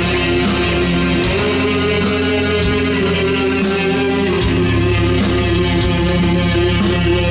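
Loud rock music: distorted electric guitar over heavy bass with a steady drum beat.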